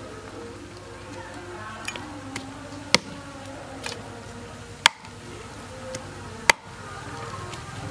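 Meat cleaver chopping pork ribs on a thick wooden chopping board: three heavy chops about two seconds apart, with a few lighter taps in between.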